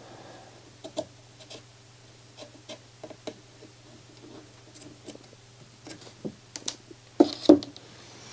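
Scattered light clicks and taps of small tools and components being handled during a circuit-board repair, with two louder knocks about seven seconds in, over a steady low hum.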